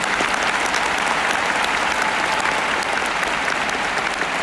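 Large arena crowd applauding, a dense, steady sound of many hands clapping.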